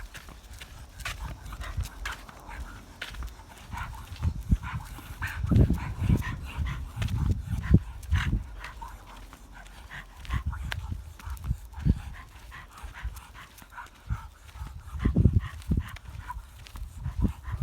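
An animal clearing its throat like an old man: rough, low harrumphing sounds that come in several bouts.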